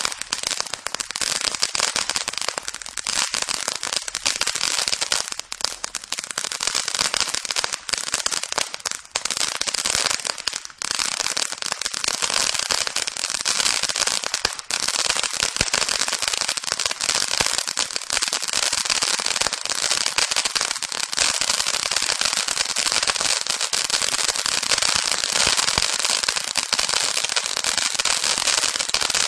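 Crackling Silver Dragon ground fountain firework burning, a steady rush of sparks full of dense, continuous crackling.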